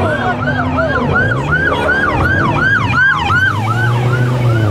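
Police SUV siren on its fast yelp, sweeping up and down about three times a second. Its pitch drops as it passes, about three seconds in. An engine runs underneath.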